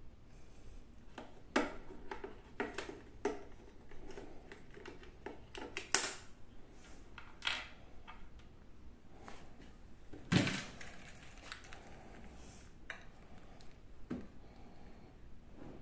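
Irregular small clicks and knocks of plastic being handled: a wireless-earbud charging case and earbuds picked up, tapped and set down on a shelf, with one louder knock about ten seconds in.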